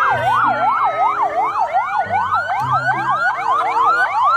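Ambulance siren sounding: a fast rising-and-falling wail, about three sweeps a second, with a second tone gliding slowly beneath it.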